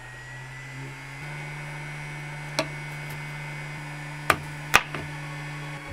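Hot air gun running with a steady hum and a high, constant fan whine. Sharp knocks cut through it, one about two and a half seconds in and two louder ones a little past four seconds.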